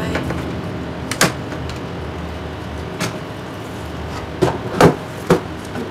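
Plastic laptop casing and display hinges knocking and clicking as the parts are handled: a handful of sharp clacks, the loudest three close together near the end, over a steady background hiss.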